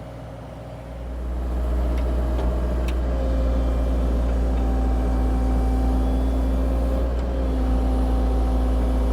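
CAT 304 E2 mini excavator's diesel engine running, growing louder about a second in and then holding a steady drone as the machine works.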